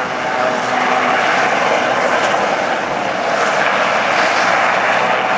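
Westland Sea King HAR.3A helicopter in a low hover, its twin Rolls-Royce Gnome turboshaft engines and main and tail rotors making a loud, steady noise.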